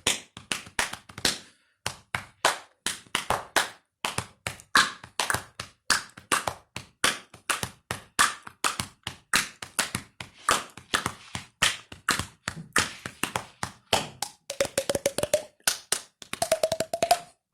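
Body percussion: hand claps, slaps on the chest and legs, and mouth clicks and taps on the cheeks, struck in a steady rhythm of several strokes a second. Two short held tones join the clicking near the end.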